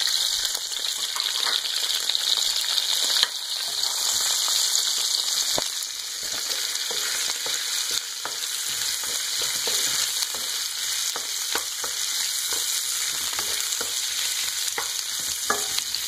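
Onions, lemongrass, ginger and kaffir lime leaves sizzling in hot oil in a frying pan, stirred with a wooden spatula that gives small scrapes and taps against the pan.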